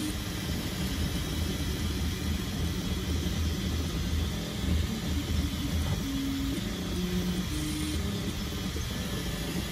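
3D printer with an E3D Hemera direct-drive extruder printing: its fans whir steadily while the stepper motors hum in short tones that change pitch with each move of the print head, over a low rumble.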